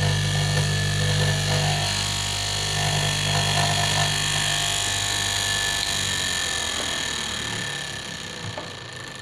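KM electric fabric cutting machine running as it cuts cloth, a steady motor hum. The hum dies away over the last few seconds.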